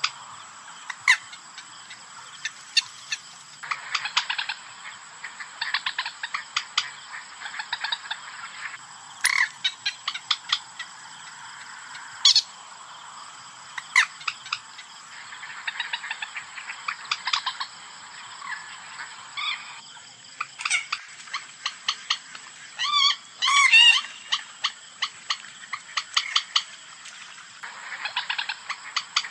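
Common moorhen calls from a lure recording: clusters of short, sharp call notes repeated at irregular intervals over a steady hiss, with a quick wavering call about 23 seconds in.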